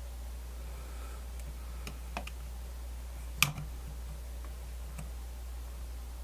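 A few light clicks and taps from small parts of a radio's dial mechanism being handled as the dial wire is threaded through, the loudest about three and a half seconds in, over a steady low hum.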